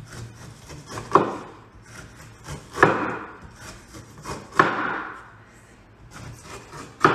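Cleaver chopping down through a whole pineapple onto a wooden cutting board: four sharp knocks, about one every one and a half to two seconds, with faint crunching and scraping of the blade in between.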